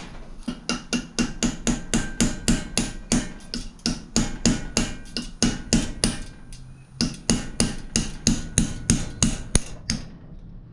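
Rapid hammer blows on a small chisel, metal on metal, driving the ground-off rivet pin out of a #40 steel roller chain link held in a vise. About three to four strikes a second, with a short pause a little past halfway.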